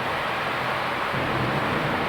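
Heavy rain pouring steadily, a dense even hiss with no distinct drops or thunder.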